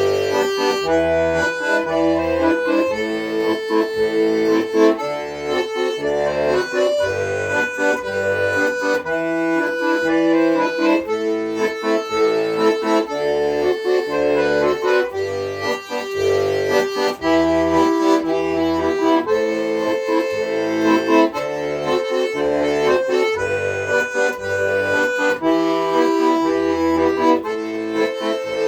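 Accordion playing an instrumental passage of a folk-style tune: sustained melody notes and chords over short, evenly recurring bass notes.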